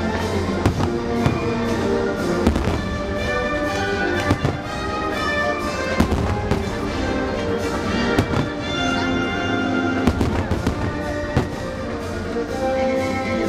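Fireworks bursting with sharp bangs at irregular intervals, a second or two apart, over loud music from the show's soundtrack.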